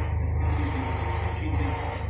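An engine idling steadily: an even, low hum with a hiss over it.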